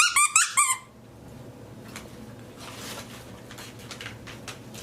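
Squeaky plastic baby toy squeezed, giving a quick run of high squeaks in the first second, then only faint background sound.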